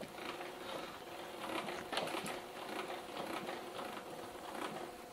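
Height-adjustment crank of a Fujiyama PP9012 benchtop thickness planer being turned, with rapid irregular clicking and rattling as the cutter head lowers toward the wood. The motor is off.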